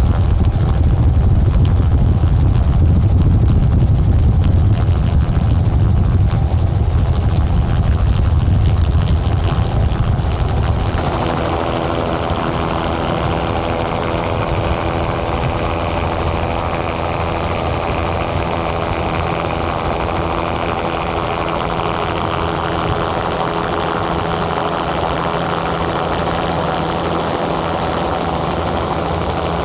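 Helicopter engine and rotor noise heard from aboard, a steady drone. About eleven seconds in it changes abruptly: the heavy low rumble drops away to a steadier drone with a thin high whine over it.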